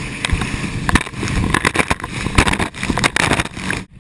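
Speedboat under way at speed: rushing water and spray along the hull, with heavy wind buffeting on the microphone. It cuts off suddenly near the end.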